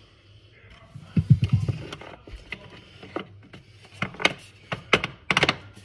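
Metal LED light channel being handled and pressed up into its mounting clips under a cabinet: a cluster of knocks about a second in, then several sharp clicks.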